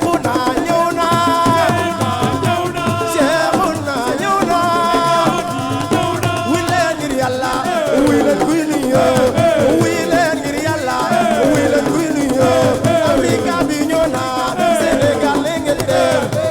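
Live assiko band music: dense hand-drum percussion under a melodic line that slides downward again and again.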